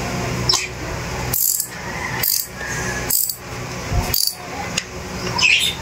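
Socket wrench ratcheting in five short strokes, a little under a second apart, as the nuts on a chainsaw's clutch side cover are tightened.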